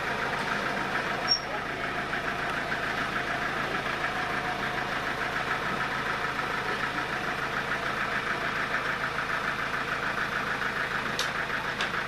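Sawmill machinery running steadily at a constant pitch, free-running rather than cutting while a teak log is set on the carriage.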